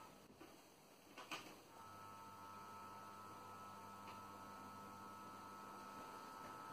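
Faint, steady electric hum and whine of an OO gauge model diesel locomotive's motor as it runs along the track, with one short click about a second in.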